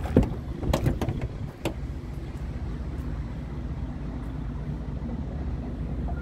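Scania R tractor unit's diesel engine idling with a steady low rumble. A few sharp knocks and clicks sound in the first second and a half.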